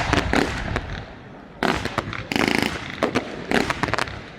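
Fireworks going off: a loud bang at the start, a longer burst of noise about a second and a half in, and several sharp reports near the end.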